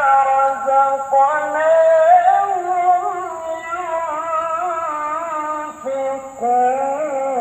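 Background music with a sung melody, its notes held and sliding in pitch.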